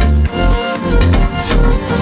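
Background music: a chill trap beat with deep bass kicks about every half second.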